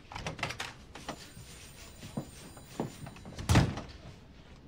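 Office door being handled and shut: a few light knocks and clicks, then one heavier thump about three and a half seconds in.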